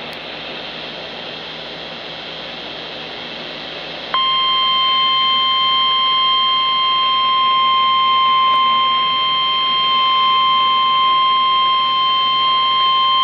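NOAA Weather Radio receiver hissing with static for about four seconds. Then its steady 1050 Hz warning alarm tone starts suddenly and holds unbroken: the alert signal that comes before a warning-level broadcast.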